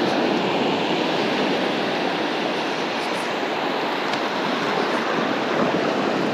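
Ocean surf washing in over shallow sand: a steady rush of breaking waves and foam, strong enough to push against a beach cart.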